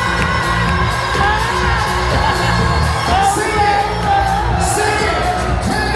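Live soul band playing over a steady beat, with a singer's held and wavering vocal line.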